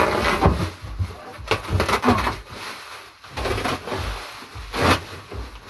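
Handling noise as goods are packed into a cardboard box: plastic rustling and a few sharp knocks, the loudest about five seconds in.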